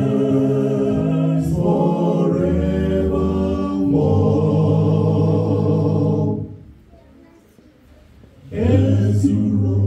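Male a cappella vocal group singing a hymn in close harmony, holding long chords that change twice before breaking off about six seconds in. After a short pause the voices come back in near the end.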